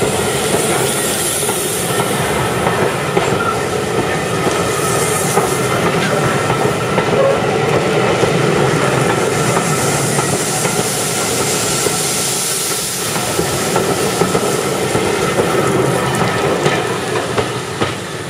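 Maroon-and-cream passenger coaches rolling slowly past at close range, their wheels clattering over the rail joints. The sound fades near the end as the last coach passes and draws away.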